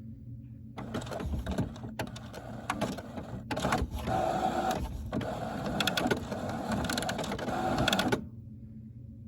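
Printer mechanism running for about seven seconds, a busy whirring with rapid clicks and a few brief pauses, then stopping, leaving a low steady hum. The noise is the weird running sound that prompted the video.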